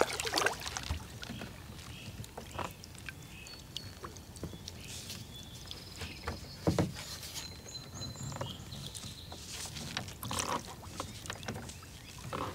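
Small water splashes and light knocks around a plastic recreational kayak sitting still by the bank, a few of them louder, at about 7 and 10 seconds in. Faint high chirps are heard in the middle.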